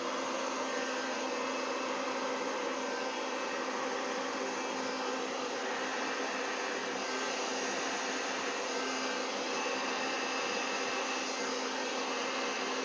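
Handheld hair dryer running steadily, with an even rush of air over a constant low hum, blowing fluid acrylic paint out across a canvas.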